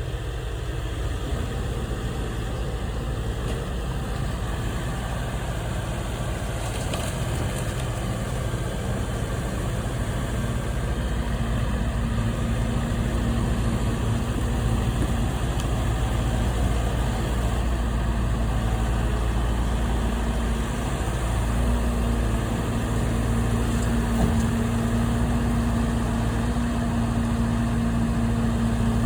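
Diesel engine of heavy demolition equipment running steadily under light load as the machine works a debris pile, with a steady low hum coming in about halfway through and holding through the last third.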